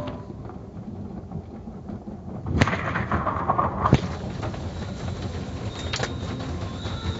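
Automatic car wash heard from inside the car: water spray hissing over the body and cloth brushes slapping and knocking against the car. A sudden loud rush comes in about two and a half seconds in and lasts just over a second, ending in a sharp hit, then the hiss and repeated knocks go on steadily.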